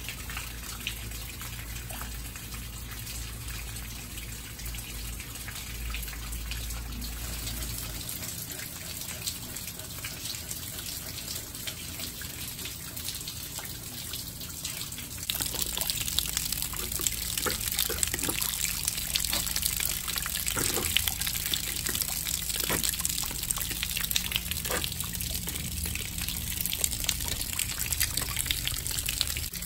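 Storm rainwater gushing and trickling down a wall as it leaks in, a steady rush that gets louder about halfway through.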